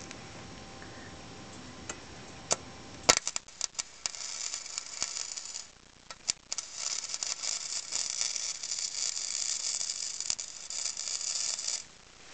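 Wire-feed welder arc crackling as it welds a hole in a steel mini bike frame. A sharp strike comes about three seconds in, followed by a short burst of crackle and a brief stop. A steady crackling run of about five seconds follows and cuts off near the end.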